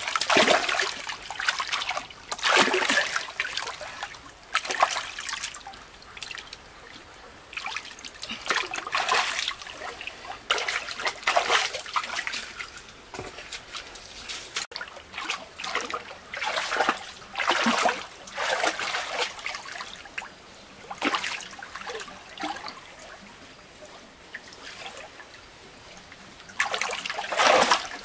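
Water splashing and sloshing in irregular bursts every second or two.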